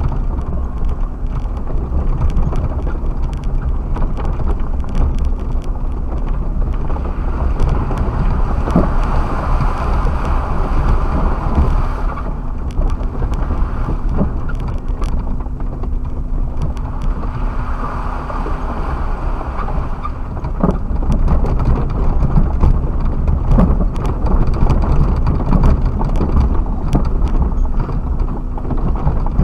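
Suzuki Jimny driving over rough ground, heard from inside the cab: a steady low rumble of engine and tyres, with a faint hum and scattered clicks and knocks throughout.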